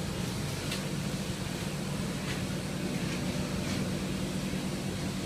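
Steady low mechanical hum, like an engine or machine running, with a few faint ticks.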